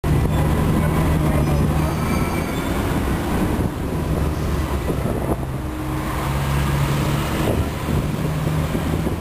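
Hong Kong double-decker electric tram running along street track, heard from on board: a steady rumble of wheels on the rails with a low hum that fades in and out.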